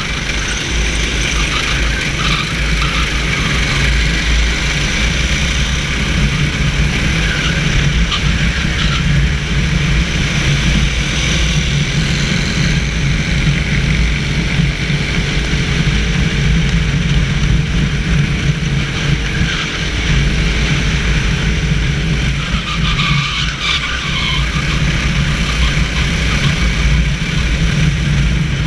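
Onboard sound of a racing kart driven hard on a wet track: its engine runs steadily under a heavy low rumble. About halfway through, on a straight, the engine note climbs slowly for several seconds.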